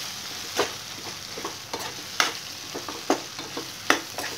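Chicken pieces frying in a non-stick pan with a steady sizzle, while a steel spoon stirs them, clinking and scraping against the pan about five times at irregular intervals.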